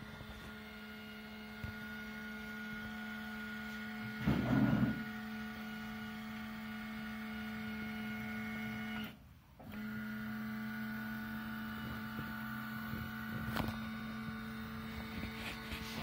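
Lift motor of a Dentamatic 500MX dental ceramic furnace running with a steady hum, raising the firing platform, stopping for under a second about nine seconds in, then running again to lower it. A brief rustling burst comes about four seconds in.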